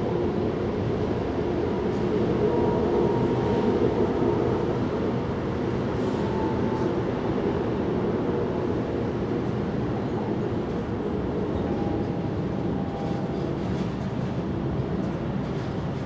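A steady, low rumble of background noise, with faint high tones drifting in and out now and then.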